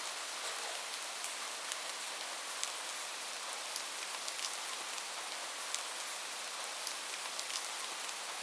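Steady rain falling, a continuous hiss with many individual drops ticking sharply on a surface.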